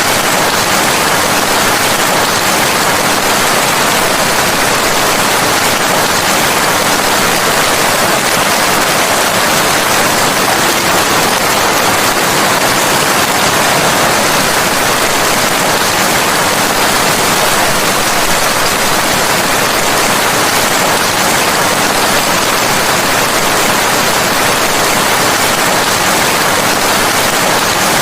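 Steady, dense rain: an even hiss with no separate drops, thunder or change in loudness.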